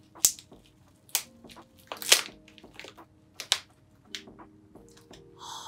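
A crinkly tea pouch being opened and handled, giving sharp crackles about once a second, then a sniff near the end.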